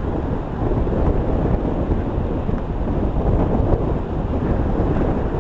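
Wind buffeting the microphone, a loud, uneven low rumble, over the steady rush of surf breaking on the beach.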